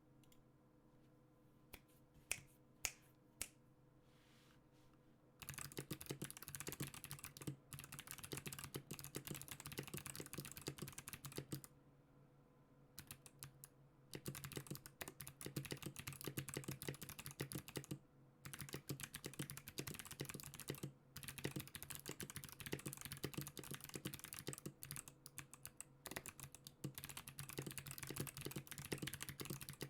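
NK65 mechanical keyboard with clicky Kailh Box Jade switches. A few single keystrokes click first, then it is typed on quickly and steadily, with a couple of short pauses.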